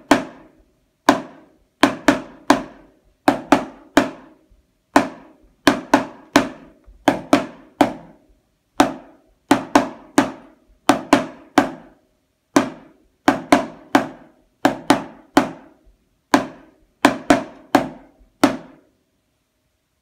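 Snare drum played with sticks in an uneven rhythm of single strokes and quick two- and three-note figures, each stroke ringing briefly. The playing stops near the end.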